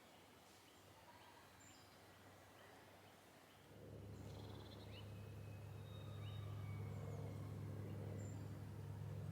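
Faint outdoor ambience with scattered short bird chirps. About four seconds in, a low engine rumble sets in and grows louder, as of a vehicle approaching.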